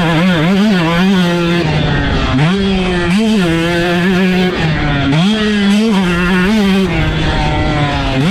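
Husqvarna two-stroke dirt bike engine being ridden hard, its pitch climbing and falling again and again as the throttle is opened and rolled off through the gears.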